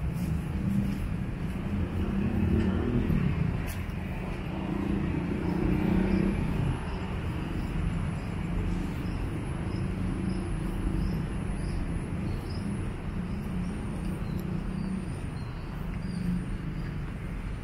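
Street traffic: engines and tyres of vehicles passing on a city road, swelling louder as vehicles go by about two and six seconds in. Faint high chirps repeat in the background.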